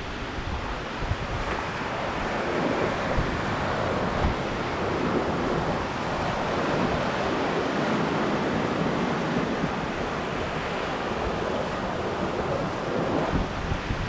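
Ocean surf: small waves breaking and washing in among boulders onto a sandy beach, a continuous rush of water and foam that swells and eases. Wind buffets the microphone with low rumbles, most at the start and again near the end.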